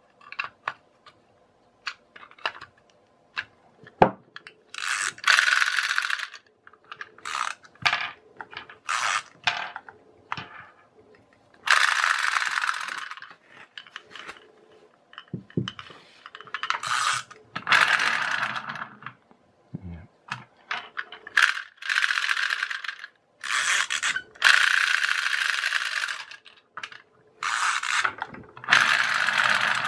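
The plastic gear train of a pull-cord clockwork turtle bath toy whirring and ratcheting in repeated bursts of half a second to two seconds as the cord is pulled out and runs back, testing the reassembled mechanism. Sharp clicks of handling come in between, most of them in the first few seconds.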